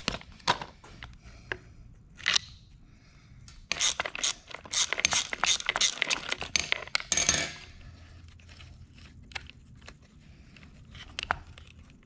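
Hand socket ratchet clicking rapidly for about four seconds as it backs off a small nut. Scattered small metallic clicks and clinks of tool and nut handling come before and after.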